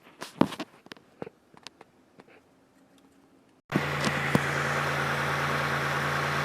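A few light clicks and knocks, then, a little over halfway in, a 2002 Chevy Malibu's engine comes in suddenly and idles steadily. The engine is being run after the new switch was fitted, to check for leaks.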